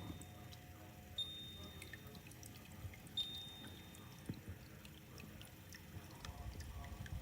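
Faint water dripping and trickling, with scattered small drips. A thin high tone sounds briefly twice, about a second each.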